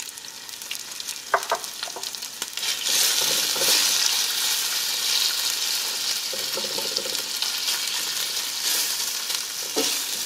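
Pieces of bacon sizzling in hot oil in a pot, the sizzle growing louder about three seconds in and then holding steady. A couple of sharp clicks come before the sizzle rises.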